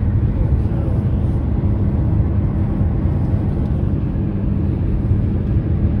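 Steady road and engine noise inside a moving car's cabin: a low rumble with a faint steady hum.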